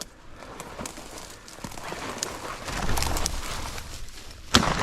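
Footsteps crunching through dry grass and brush, then a single shotgun shot near the end, fired at a flushing bird and missed.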